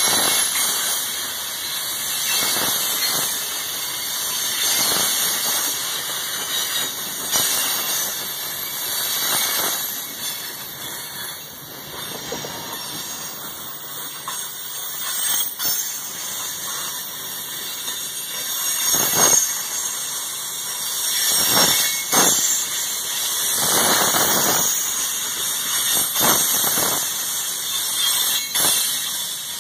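Freight train cars rolling past, their steel wheels squealing and hissing on the rails. Irregular knocks come more often in the second half.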